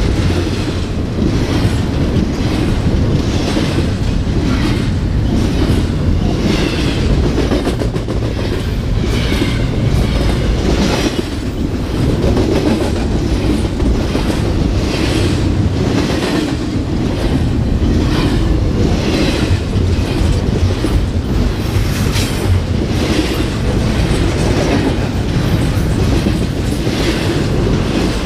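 CPKC freight train passing close by: the cars' wheels click over rail joints in a steady clickety-clack above a loud, continuous rumble.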